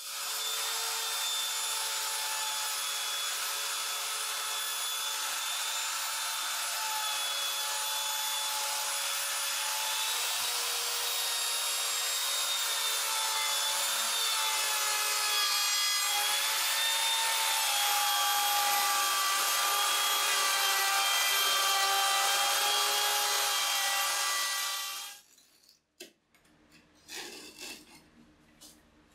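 Electric plunge router running and cutting a circular groove in plywood: a steady motor whine mixed with the bit chewing through the wood. It starts abruptly and stops about 25 seconds in, followed by a few faint handling clicks.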